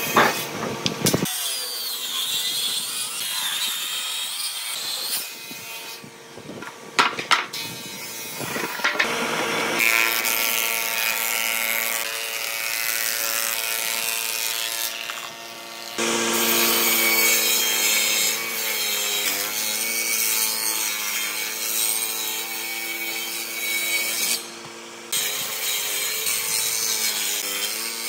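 Woodshop power machines working hardwood boards in turn: a thickness planer running with a steady motor hum and the rush of its cutters as a board feeds through, and a table saw cutting a board near the end. A few sharp knocks about seven seconds in.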